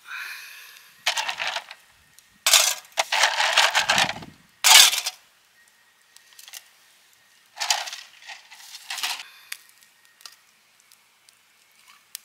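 Ice cubes tipped from a plastic bag into a stainless steel camp cup, clinking and rattling against the metal in several bursts, the loudest about five seconds in.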